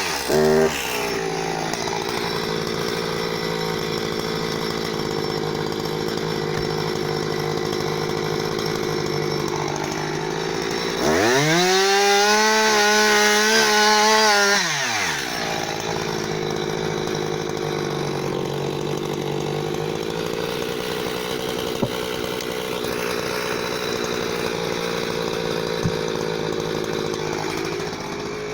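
Husqvarna 359 two-stroke chainsaw idling steadily, revved up to full throttle for about four seconds in the middle with a wavering pitch before dropping back to idle. It also falls back from a rev right at the start.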